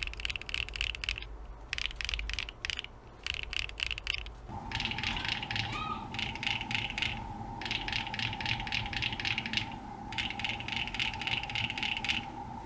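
Typing on a mechanical keyboard with long-pole HMX Macaron switches on an aluminium leaf-spring plate: fast runs of sharp key clacks with short pauses between them. About four and a half seconds in, a steady hum comes in under the keystrokes.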